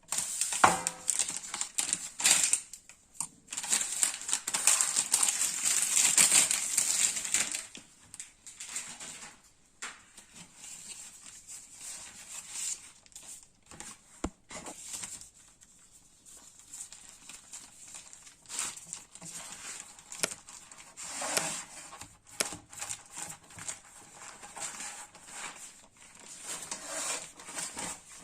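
Packaging crinkling and rustling as it is handled, dense and loudest for the first eight seconds, then quieter, scattered rustles and small taps.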